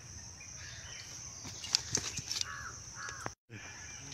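A crow cawing twice, faintly, a little over two seconds in, over a steady high-pitched hiss of outdoor background.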